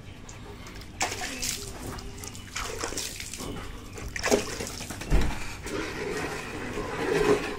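Water splashing and sloshing on a wet concrete floor in irregular spurts, starting about a second in, with a deep thump about five seconds in.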